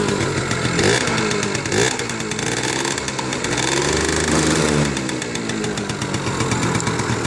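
1993 Yamaha Razz moped's small two-stroke engine running, warming up after its first cold start of the year. The throttle is worked so the revs rise and fall several times.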